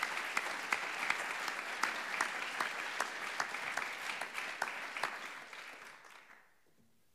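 An audience applauding: dense clapping that dies away about six seconds in.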